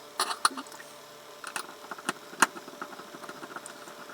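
Scattered small, sharp clicks and taps as a digital wristwatch's case and tiny screws are handled and worked on by hand: a quick cluster at the start, then single clicks every half-second to a second.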